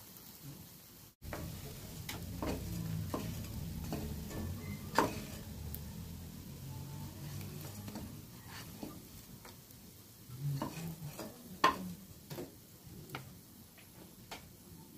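Moringa-leaf pakoras sizzling in shallow oil in a non-stick frying pan while a wooden spatula stirs and turns them, with scattered taps of the spatula against the pan, the sharpest about five seconds in and just before twelve seconds. The sound drops out briefly about a second in.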